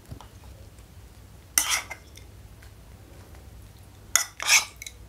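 Metal spoon scraping and clinking against a ceramic bowl while scooping out thick chili sambal, in three short bursts: one about a second and a half in, then two close together near the end.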